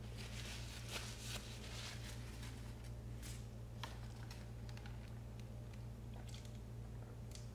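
Paper napkin rustling as fingers are wiped, for the first two seconds or so, then a few scattered soft clicks and handling noises, over a steady low electrical hum.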